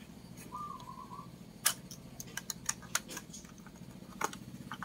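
Clicks from a car stereo head unit being handled and turned over in the hands: a sharp click about one and a half seconds in, a quick run of lighter clicks after it, and another sharp one near the end, over a faint steady low hum.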